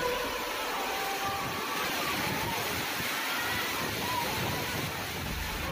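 Heavy rain and strong wind of a sudden storm, heard as a steady, even noise.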